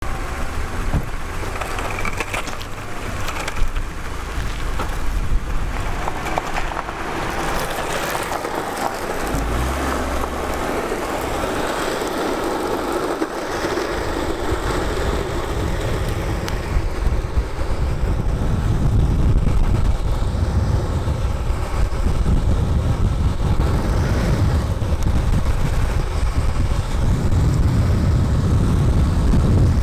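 Downhill skateboard's urethane wheels (Powell Peralta DH Snakes) rolling over smooth pavement, a steady rumbling hiss, with wind on the microphone. The low rumble grows heavier and a little louder in the second half as speed builds.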